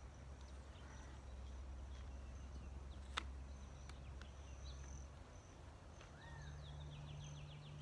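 Quiet outdoor background: a steady low hum with scattered bird chirps and a faint high insect whine. There is a single sharp click about three seconds in, and a short rising-and-falling call followed by a quick high trill near the end.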